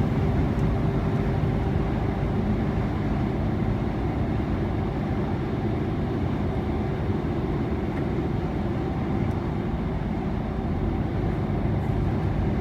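Steady engine drone and road rumble heard inside a heavy goods vehicle's cab on the move, with a couple of faint steady tones over it.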